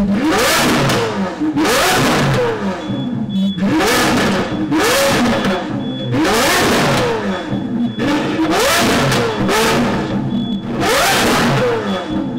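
Lamborghini Aventador SVJ's V12 being revved hard while the car stands still: about eight sharp blips of the throttle, each climbing quickly in pitch and falling back to idle.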